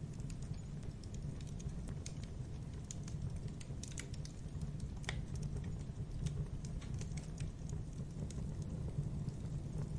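Logs burning in a fireplace, crackling with irregular sharp pops and snaps over a steady low rumble of the flames.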